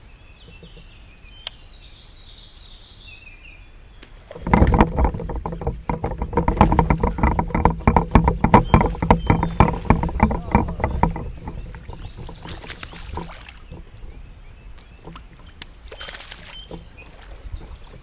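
Fishing reel wound in fast for about seven seconds, starting about four seconds in: a dense run of rapid clicks over a steady hum, the retrieve of a topwater frog lure. Birds chirp in the first few seconds.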